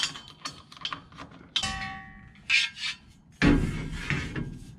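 Steel Uni-Strut channel and its bolt hardware being handled: light metal clicks and taps, then a ringing clank about a second and a half in. A louder scraping knock comes about three and a half seconds in and fades over a second.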